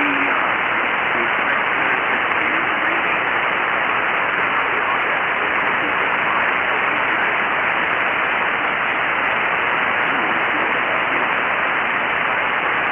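Steady hiss of band noise from an HF ham transceiver's speaker on 40-metre SSB. The other station's voice has faded down into the noise, leaving only faint traces of it.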